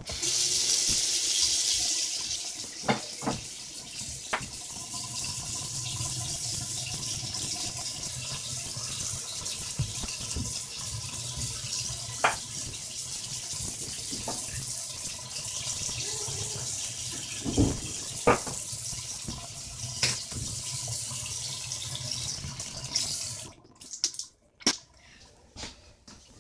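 Bathroom sink tap running, a steady rush of water into the basin that stops abruptly near the end, with a few light knocks through it.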